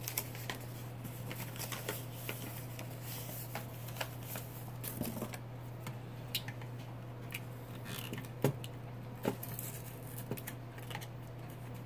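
Light plastic clicks and rustles as a red plastic System Sensor MASS fire alarm horn-strobe is handled and turned over. A couple of sharper clicks come about eight and nine seconds in, over a steady low hum.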